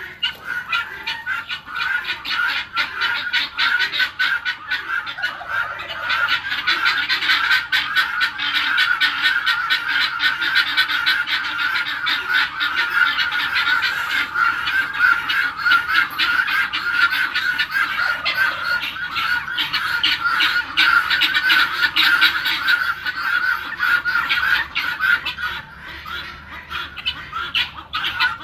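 A flock of helmeted guinea fowl calling together in a rapid, continuous chatter, louder from about six seconds in and easing briefly near the end.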